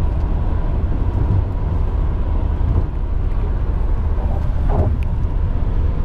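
Inside a moving car: a steady low rumble of road and engine noise while driving at night on the highway.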